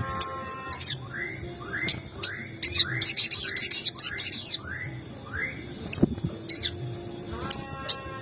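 Sogon birds calling: a run of short rising 'cuit' chirps about two a second, overlaid by a burst of harsh, high scolding calls in the middle. This is a lure recording meant to provoke other sogon birds into calling.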